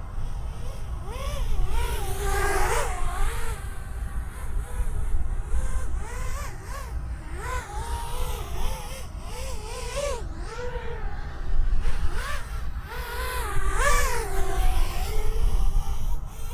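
T-Motor 2004 3000 kV motors and props of a five-inch toothpick quadcopter whining in flight, the pitch rising and falling with throttle, with louder swells about two seconds in and again near the end. It carries a strange warble that the pilot says is not really an oscillation.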